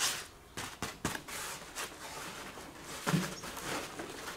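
Handling of a soft nylon carrying case with a foam insert as its lid is flipped closed and pressed down: fabric rustling with a few light knocks and a dull thump about three seconds in.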